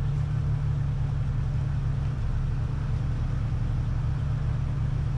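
Jeep engine running steadily: a constant low drone with a fast pulsing underneath.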